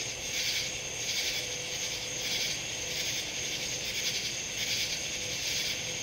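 A steady chorus of night insects, a dense high-pitched chirring that swells and fades slightly, with a faint steady hum beneath.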